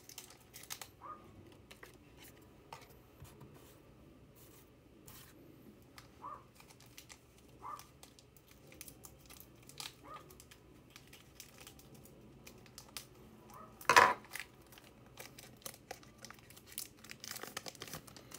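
A trading card pack wrapper crinkling and being torn open, with scattered small rustles and clicks, and one loud sharp rip about fourteen seconds in.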